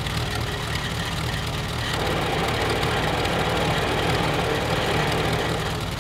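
Vintage farm tractor engine running steadily, getting a little louder about two seconds in as the hydraulic lift takes up the chain and raises the coop.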